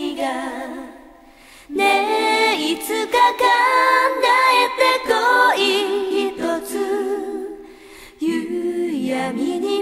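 Anime ending theme song sung a cappella: voices singing in harmony with no instruments, in phrases broken by two short pauses, one about a second in and one near the end.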